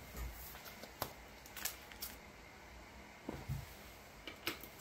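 Faint handling sounds: about seven light taps and rustles scattered through, over a low room hiss.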